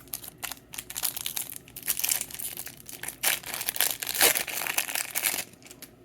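Foil Pokémon booster pack wrapper crinkling and tearing as it is handled and ripped open, a dense run of crackles that stops about a second before the end.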